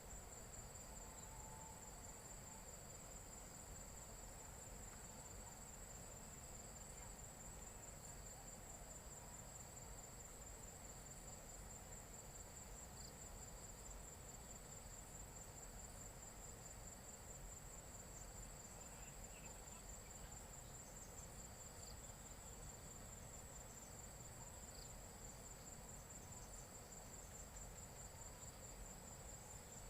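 Faint, steady high-pitched trill of night insects chirring, with a fast even pulse and no breaks.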